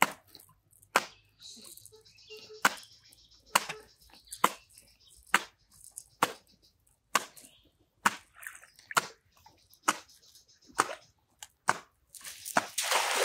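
Sharp clicks about once a second, then near the end a splash as a thrown cast net lands on the water.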